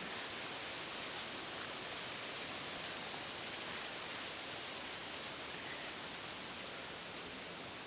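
Steady, even hiss of background noise, with one faint tick about three seconds in.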